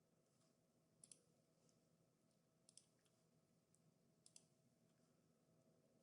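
Faint computer mouse clicks: three quick double clicks about a second and a half apart, over a low steady room hum.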